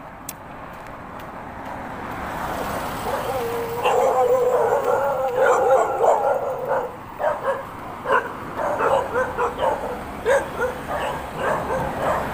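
Dog barking: a drawn-out cry about three seconds in, then a run of short barks at about two a second, over rising background noise.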